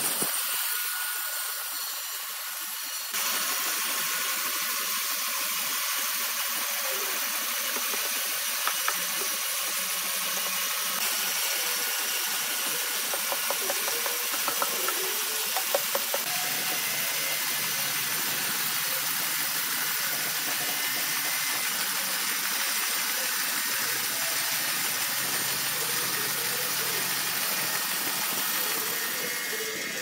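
Horizontal band sawmill running, its blade cutting lengthwise through a large log with a steady, even hiss, and a few short clicks in the middle.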